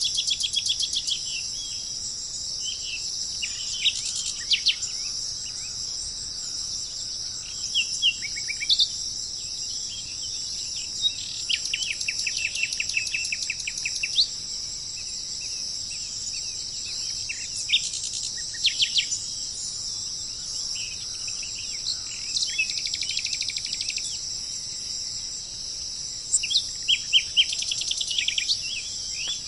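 A steady high insect drone of crickets or cicadas, with small birds calling over it in short bursts of rapid chirps and trills every few seconds.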